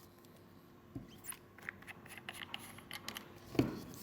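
Small clicks and scrapes of metal rebuildable tank atomizer parts being handled and fitted together, with one louder knock about three and a half seconds in.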